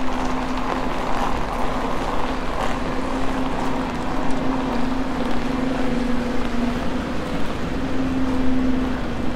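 A steady mechanical hum holding one pitch, with a fainter higher overtone, over a constant wash of rain and city noise.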